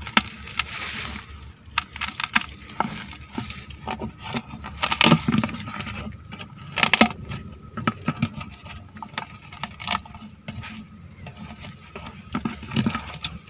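Irregular clicks, scrapes and knocks as coconut rhinoceros beetles are pressed and crushed by hand against the bottom of a plastic bucket trap, hard beetle shells and knuckles striking the plastic.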